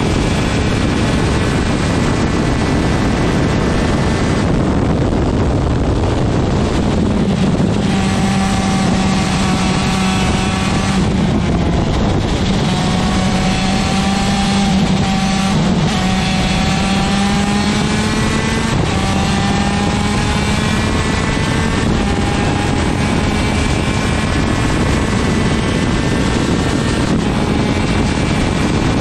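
A 125 cc TM two-stroke superkart engine being driven hard. Its pitch climbs steadily through each gear and drops at each shift or lift, over and over, under a loud steady rush of noise.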